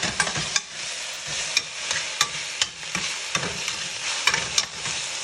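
Baby kale sizzling in olive oil in a stainless steel pan as it cooks down, tossed with metal tongs that click sharply against the pan several times.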